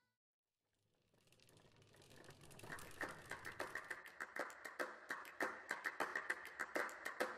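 Music track fading in: rapid, evenly spaced ticks with a steady high tone, swelling gradually from silence starting about a second in.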